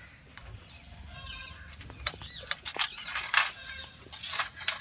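Sharp metal clicks and clinks of hand tools and loose engine parts being handled during cylinder-head work, the loudest about three and a half and four and a half seconds in, with birds chirping in the background.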